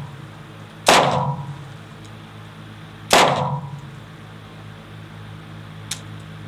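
Two single pistol shots a little over two seconds apart, each dying away in a short echo off the walls of the enclosed range, with a faint click near the end.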